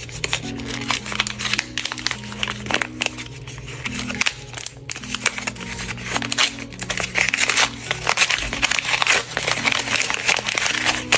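White paper crinkling and rustling as a handmade paper blind bag is unfolded and opened by hand, busier and louder in the second half. Background music with a simple melody plays underneath.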